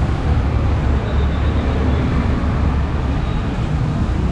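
Steady rumble of city street traffic, with buses and motorbikes running along a wet road.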